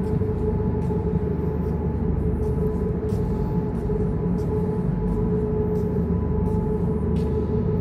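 A machine running steadily: a low rumble with a constant mid-pitched hum over it, and scattered faint ticks.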